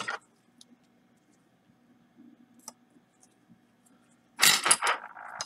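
Small clicks and taps of tools and tiny phone parts being handled on a repair bench, with a louder cluster of sharp clicks and a short rattle about four and a half seconds in.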